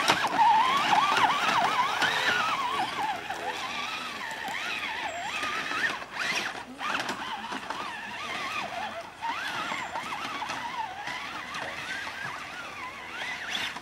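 Electric motor and gear drive of a radio-controlled trail truck whining, the pitch rising and falling as the throttle changes, with a few scattered knocks.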